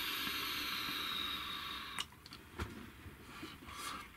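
A long direct-lung draw on an E-Phoenix Hurricane 1.4 NG rebuildable tank atomizer: a steady hiss of air through its open airflow and over the firing 0.36 ohm fused Clapton coil. The hiss stops about two seconds in, followed by a couple of sharp clicks and a soft exhale.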